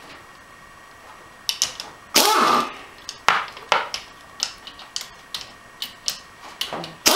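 Impact wrench on a long socket extension briefly spinning out one of the already-loosened 14 mm bolts of an AX5 transmission case. One short run about two seconds in winds down in pitch as the trigger is released, and another starts at the very end. Light metallic clicks and taps of bolts and tools come in between.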